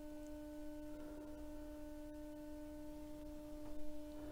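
Steady 300 Hz test tone played from a vinyl test record, heard faintly with overtones above it. The turntable's stylus and cartridge rattle with the tone's distortion, a sign of mistracking from skating with too little anti-skate force.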